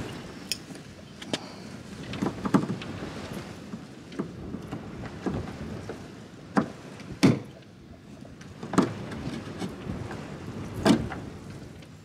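Irregular clicks and knocks of a Fiat 500's exterior door handle being compressed and jiggled loose in the door panel, with a few sharper knocks in the second half.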